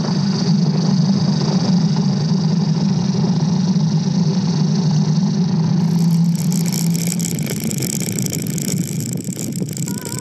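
Fat pneumatic tyres of a wheeled downhill sled rolling fast on asphalt: a steady rumbling hum with a hiss over it. About six seconds in the sound turns brighter and hissier.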